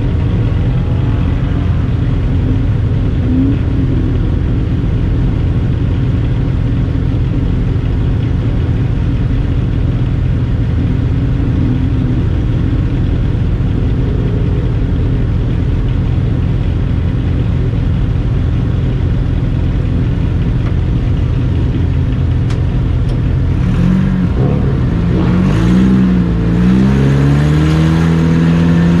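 Race car engines running at low, steady revs in a deep, even rumble. About 24 seconds in, several engines rev up with climbing pitch as the cars accelerate.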